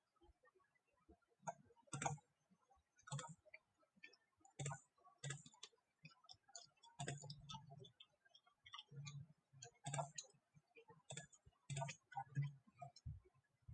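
Faint, irregular computer mouse clicks, about a dozen, some with a dull low knock.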